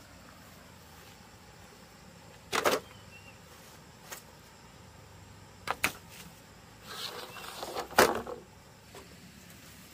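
A few sharp knocks and clatters: a double knock, a couple of single taps, and a longer rattling clatter near the end with one loud hit.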